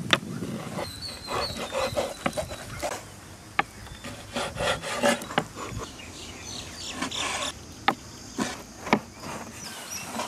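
Kitchen knives slicing raw goat offal, lung and heart, on wooden cutting boards: irregular cutting and scraping, with sharp knocks each time a blade strikes the board.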